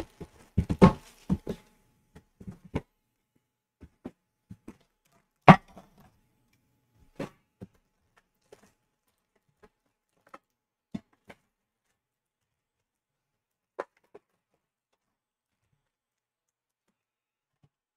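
Scattered light clicks and taps from hands handling card packs in an opened metal hockey-card tin, with one sharper knock about five and a half seconds in.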